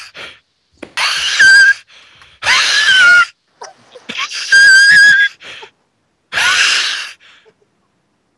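A person wheezing loudly in four drawn-out, high-pitched, bleat-like gasps of about a second each, with short pauses between them.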